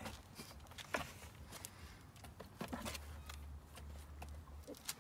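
Scattered clicks and scuffs of dogs' paws and claws on plywood and concrete as a mother dog and her puppies move around the doghouse entrance, over a low rumble.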